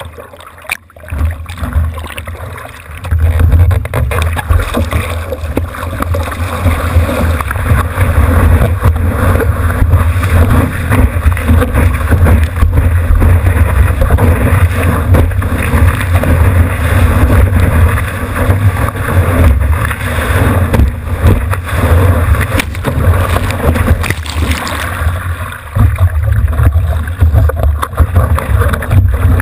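Surf water rushing and sloshing over a surfboard-mounted GoPro as the board paddles out and rides a wave, with a heavy low rumble of water and wind buffeting the camera housing. It gets loud about three seconds in and eases briefly near the end.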